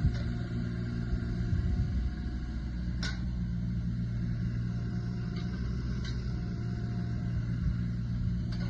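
JCB 16C mini excavator's diesel engine running steadily. A few short sharp clicks or knocks come over it, the clearest about three seconds in.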